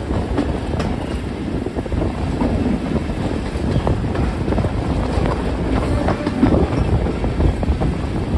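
Class 37 diesel locomotive hauling its train over pointwork: a low, steady rumble from its English Electric V12 diesel engine, with wheels clacking repeatedly over rail joints and points.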